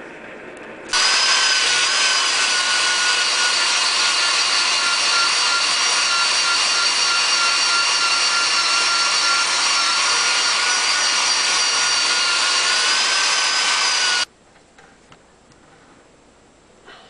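Power tool spinning a wire wheel to buff a folded, flattened locked sheet-metal seam clean before fluxing. A steady high motor whine with a scratchy hiss switches on about a second in and cuts off abruptly about thirteen seconds later.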